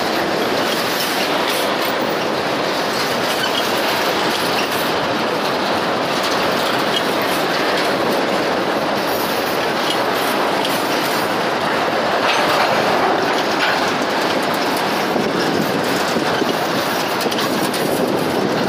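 Loaded freight train's wagons rolling past close by: a steady clatter of steel wheels on the rails with clickety-clack over the rail joints.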